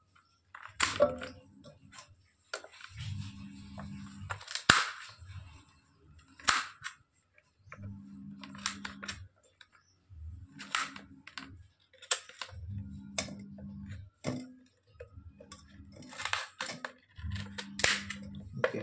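Small knife chopping beetroot on a stainless steel plate: repeated sharp clicks and taps as the blade goes through the beetroot and strikes the plate, a second or two apart.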